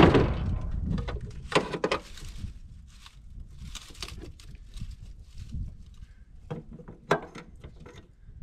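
Clunks, knocks and clicks from battery cables, clamps and tools being handled on a car battery under the open hood. A loud thump right at the start, another burst of knocks about a second and a half in, and a few sharper clicks near the end.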